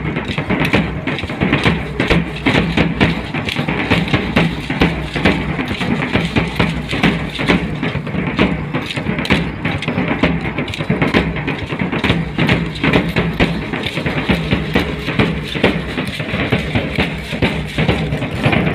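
Live dance music from a drum kit with a bass drum and cymbals, with brass, playing a steady, driving beat with many sharp drum hits.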